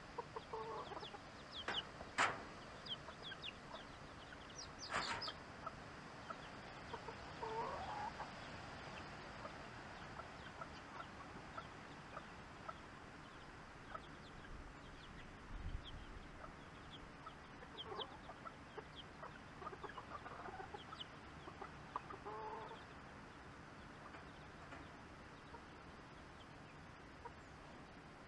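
Backyard hens clucking on and off, with many short high peeps between the clucks and two sharp, louder sounds about two and five seconds in, over a steady outdoor hiss.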